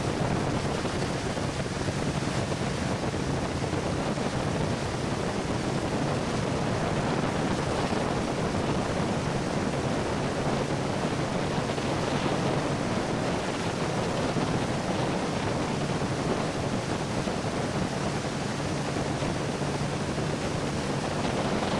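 Steady rush of water spray and wind noise on the microphone aboard a moving towboat, with the boat's engine humming low underneath.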